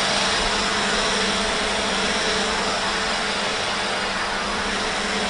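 Quadcopter drone's rotors running steadily in flight, a constant whirring drone with a steady hum.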